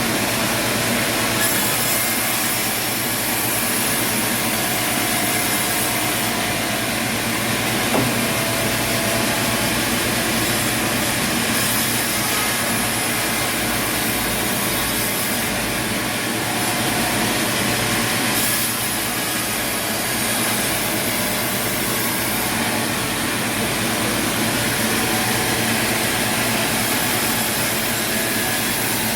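Sawmill running: engine and saw cutting through wood with a steady noise, and one short knock about eight seconds in.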